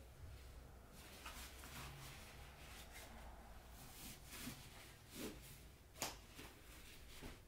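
Faint rustling and handling of a packed sleeping-bag stuff sack as its drawstring is pulled and the top closed, with a few soft clicks and taps, the sharpest about six seconds in.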